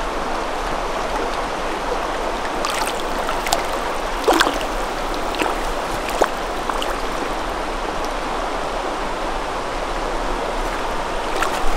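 River water running steadily over a shallow stretch, with a few short sharp ticks or small splashes a few seconds in.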